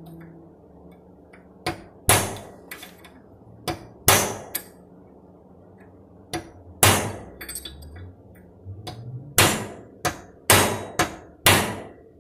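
Hammer striking steel wheel-bearing parts: a dozen or so sharp, irregularly spaced metal-on-metal blows.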